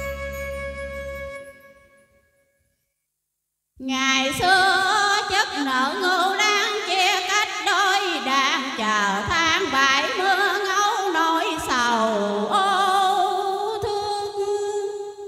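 An instrumental backing track fades out in the first two seconds, then after a short silence a woman sings into a microphone: a slow Vietnamese tân cổ (cải lương-style) vocal line with wide vibrato and sliding pitch, trailing off near the end.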